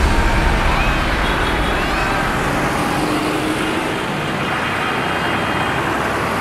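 Diesel engines of large farm tractors running as the tractors drive past one after another at low speed, a steady engine drone that is loudest at the start and eases a little.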